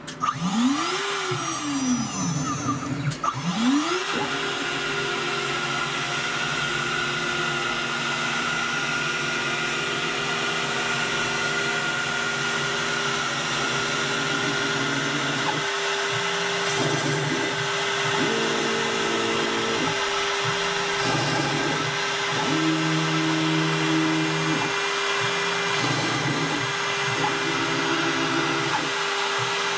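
CNC router's high-speed spindle spinning up, with a rise and fall of pitch, then rising again about three seconds in and running at a steady high whine. From about halfway on, lower tones switch on and off in blocks as the stepper-driven axes move between holding-hole positions.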